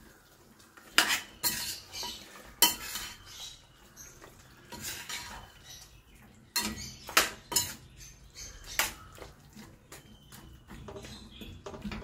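A steel ladle stirring chicken pieces in a stainless steel kadai, scraping and clinking against the pan's sides with irregular sharp knocks, the loudest about a second in, near 3 s and around 7 to 9 s.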